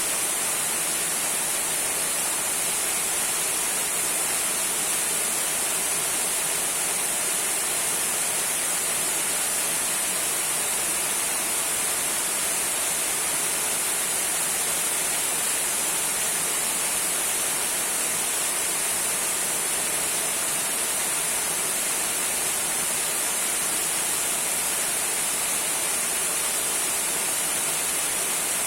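Trickling waterfall: a steady, even hiss of falling water, brightest in the high range, with little low rumble.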